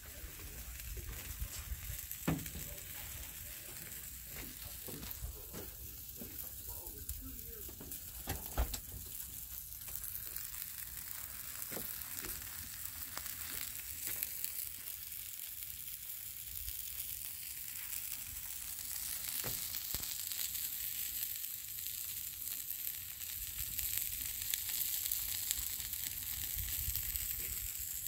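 Shredded potatoes frying on a Blackstone flat-top griddle: a steady sizzle, with two sharp knocks in the first ten seconds.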